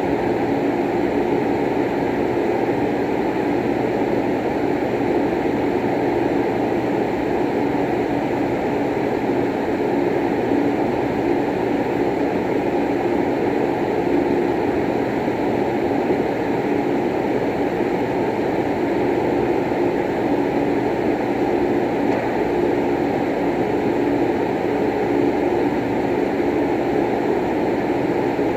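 Steady rushing drone with a low hum, unchanging throughout; no balls are struck.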